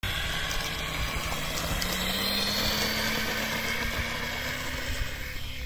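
Electric RC plane's 2212 1000 kV brushless motor spinning a 10×4.5 propeller at takeoff throttle: a buzzing whine that rises in pitch over the first few seconds, then fades near the end as the plane moves away.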